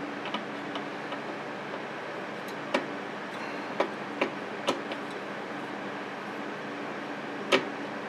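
Screwdriver turning a CPU cooler's mounting screw down until it bottoms out: a few sharp clicks scattered over a steady background hum, the loudest one near the end.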